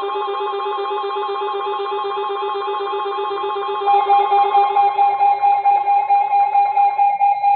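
Weather radio emergency alert tone announcing a Flood Warning: a loud electronic alarm of several warbling tones. About four seconds in it changes to a single pitch that beeps about two to three times a second.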